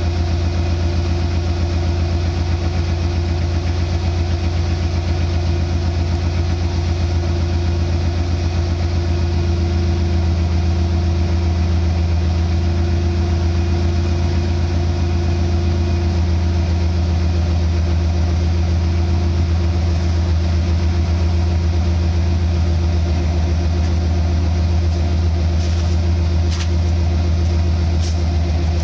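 1994 Ford F-150 engine idling steadily after a cold start in freezing weather, heard close at the tailpipe. A couple of faint clicks come near the end.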